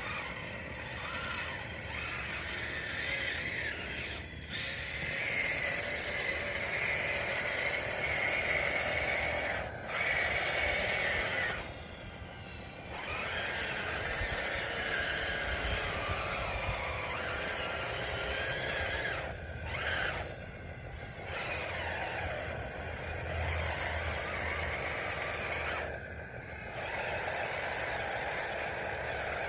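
Scale RC bulldozer's electric track drive and gearbox whining as it runs, the pitch shifting with the load and speed, with a few short breaks.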